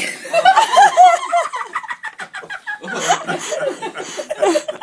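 Laughter in short, repeated bursts, with a pause in the middle, as the sneeze attempt fails.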